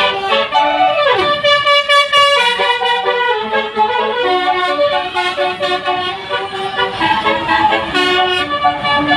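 Bus telolet horn (Basuri multi-tone horn) playing a melody: loud pitched horn tones stepping from note to note, with a falling slide about a second in.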